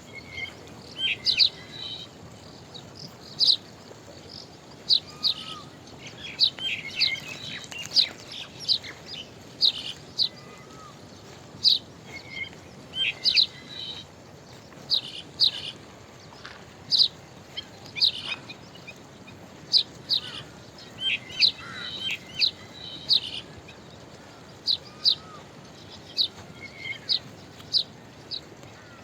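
Birds chirping in a morning chorus: many short, sharp, high-pitched chirps, often in quick pairs or clusters, one every second or so, over a steady low background hiss.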